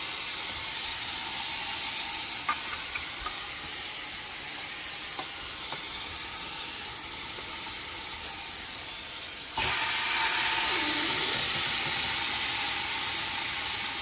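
Chicken and pork frying in oil in a pan: a steady sizzle with a few light clicks, which jumps suddenly louder about ten seconds in.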